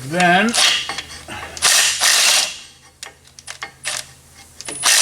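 Air ratchet running in two bursts of about a second each, backing out bellhousing bolts between a Pontiac 350 V8 and its TH350 transmission, followed by light metallic clicks and taps.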